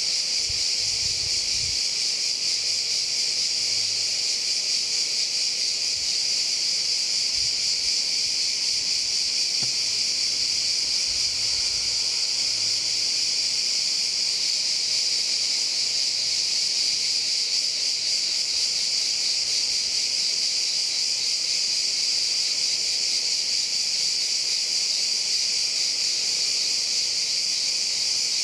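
A dense chorus of crickets chirping, a steady, unbroken high-pitched trilling that never lets up.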